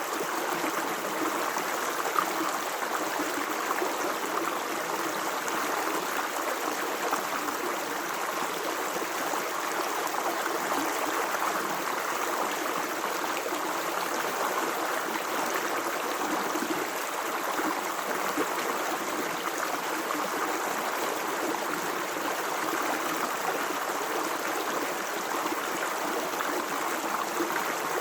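Natural running water flowing steadily, an even, unbroken rush.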